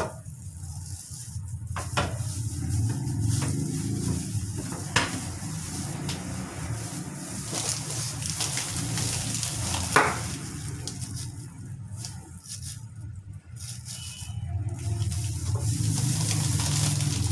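Plastic bag and disposable plastic gloves crinkling and rustling as toy capsules are handled, with three sharp clicks of plastic pieces knocking, the loudest past the middle. A steady low hum underneath.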